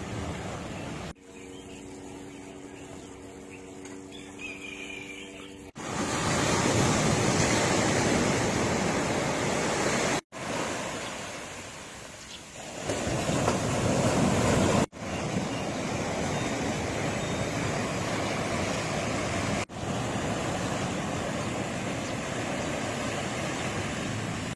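Surf breaking and washing up a sandy beach: a loud rushing wash that breaks off abruptly every few seconds. The first few seconds are quieter, with a low steady hum.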